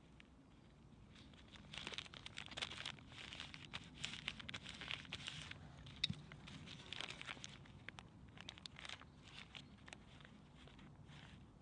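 Faint irregular rustling and scraping from something being handled, with one sharp click about six seconds in.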